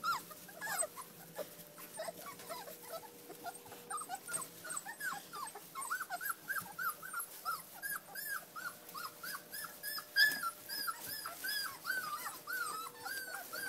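A litter of newborn puppies squeaking and whimpering as they nurse: many short rise-and-fall squeaks, overlapping, a couple a second. A sharp click about ten seconds in.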